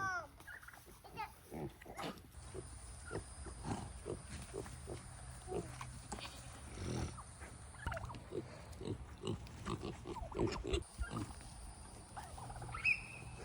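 Farm animals making many short, irregular grunts, with a brief higher call near the end.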